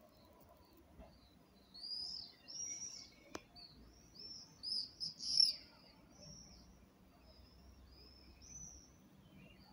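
A small songbird singing a run of short, high, arched chirps, loudest about five seconds in. One sharp click sounds a little after three seconds.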